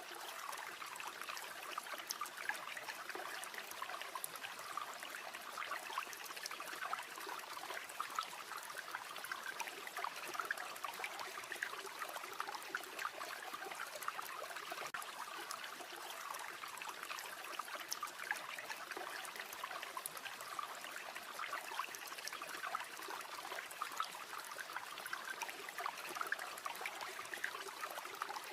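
River water flowing in a steady rush, with scattered small crackles and pops from a campfire.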